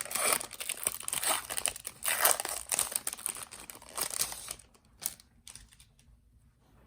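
A trading-card pack's wrapper being crinkled and torn open, a dense crackling for about four seconds, then a few light ticks as it is set down or the cards are handled.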